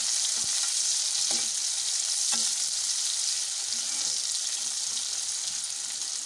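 Sliced onions and green chillies sizzling steadily in hot oil in a nonstick kadhai as they are stirred with a spatula, with a few light knocks of the spatula against the pan in the first half.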